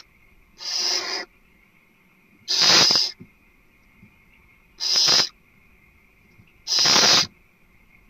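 Barn owl giving harsh hissing calls: four rasping bursts, each about half a second long, repeated about every two seconds.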